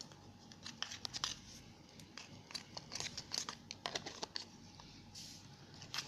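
Freshly made slime being worked with a little baby oil, giving irregular sticky clicks and crackles as it is stretched and pulled apart.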